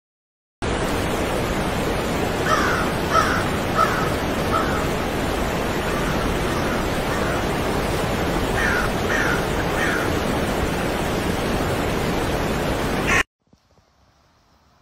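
A flock of birds calling in short, harsh calls: a run of four about two and a half seconds in and three more near nine seconds. The calls sit over a loud steady rushing noise that cuts off suddenly near the end.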